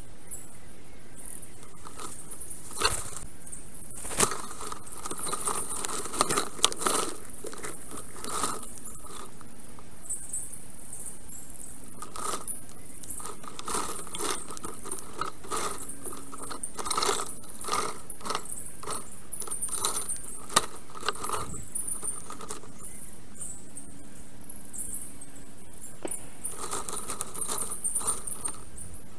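Fast-forwarded nest-camera audio: a constant high, fine chirping over bursts of quick clicks and rattles as a black stork shifts sticks in its nest.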